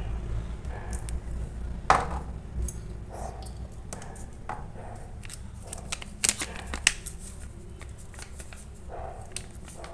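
Scattered clicks, taps and rustles of hands handling ingredient containers over a steel mixing bowl, with a sharp knock about two seconds in and a cluster of clicks around six to seven seconds, over a steady low hum.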